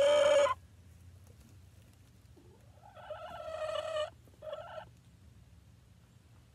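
Hens calling in a nesting box. A long, steady call cuts off about half a second in. Later there is a call that rises and then holds for about a second, followed by a short call.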